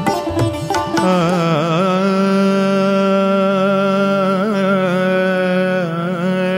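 Indian-style background music: a few plucked-string strokes in the first second, then one long held note with small ornamental wavers lasting about six seconds and falling away at the end.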